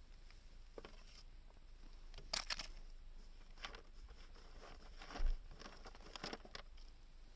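Scattered light clicks, crinkles and rustles of small objects being handled, with a dull knock about five seconds in.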